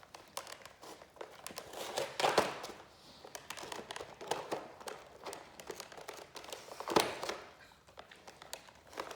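Two Great Danes gnawing and crunching on a large chew bone: irregular clicks, scrapes and crunches of teeth on the bone, with the loudest crunches about two seconds in and again about seven seconds in.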